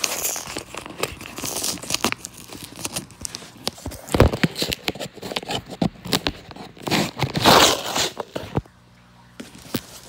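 A cardboard shipping box and its packing being torn open and handled by hand: irregular tearing, crinkling and crackling, with louder rustling bursts about four and seven and a half seconds in.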